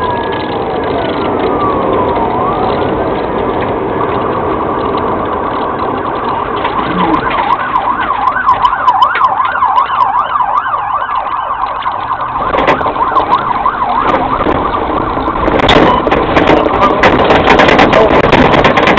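Police car siren running over the patrol car's engine and road noise, a slow rising-and-falling wail that switches to a fast yelp about eight seconds in. Near the end, a burst of knocking and rattling as the car drives off the pavement onto rough grass.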